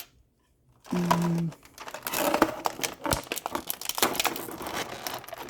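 Plastic packaging bag crinkling and rustling as it is handled and opened, with many small crackles and clicks, starting about two seconds in.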